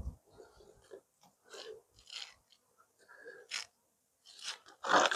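Scattered short crunching and scraping as a thick, stiff sugar feed is pressed and broken down into a beehive by hand, ending in a louder burst of handling noise near the end.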